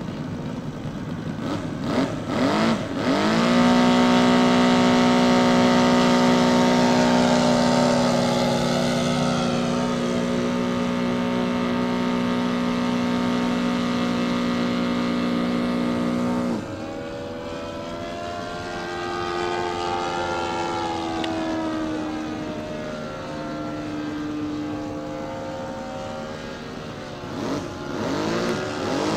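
Brushless electric motor and propeller of a radio-controlled Hawker Hurricane model plane whining in flight. It holds a steady high throttle for a long stretch, then is cut back sharply just past halfway. The pitch wavers as the plane passes, and it throttles back up near the end.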